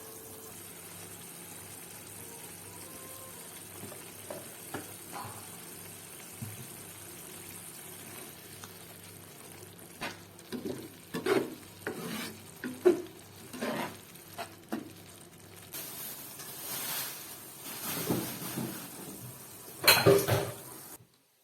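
Food sizzling in a frying pan with a steady hiss. From about halfway a spatula starts stirring and scraping it in irregular strokes, loudest near the end, and then the sound cuts off suddenly.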